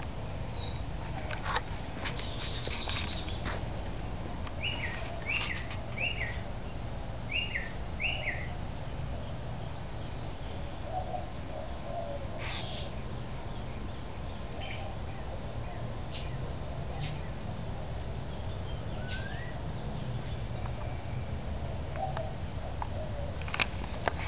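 Wind buffeting the microphone with a steady low rumble. A bird chirps five times in quick succession about five seconds in, and there are scattered faint clicks and a few more short chirps.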